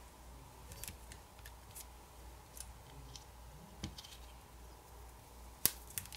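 Faint, scattered clicks of metal tweezers against a smartphone's internal parts as wires are lifted off the camera assembly, with one sharper click near the end.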